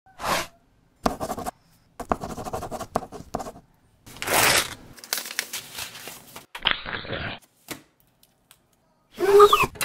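Close-up paper-handling sounds in quick succession: scratching, writing and tearing noises on paper as a cheque is written out and stamps are peeled off a sheet. They come as separate short bursts with silences between, the loudest about halfway through. Near the end there is a short sound that slides in pitch.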